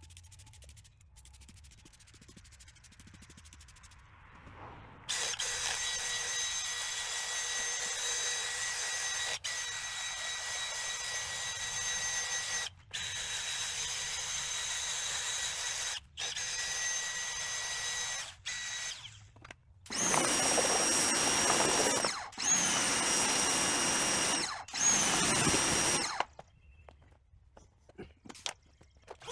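A power tool's electric motor runs steadily for about fourteen seconds with a few brief stops. It then runs in three shorter, louder spurts, its pitch dipping briefly as each one starts.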